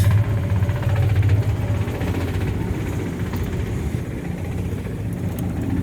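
Carrier rooftop HVAC unit running, a steady low hum.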